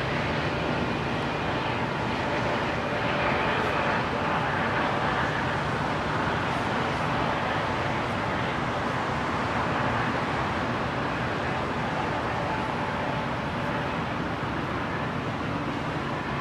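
Steady road-traffic noise: cars driving across the level crossing, a continuous rumble and tyre hiss with a faint steady hum underneath.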